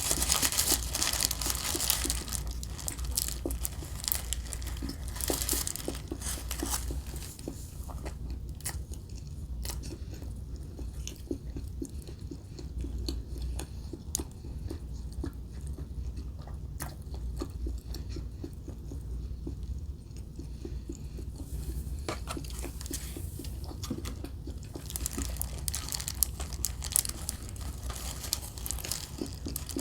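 Close-up chewing and biting of Burger King fast food, wet crunchy mouth sounds right at the microphone. Louder, denser bites near the start and again near the end, with quieter chewing in between.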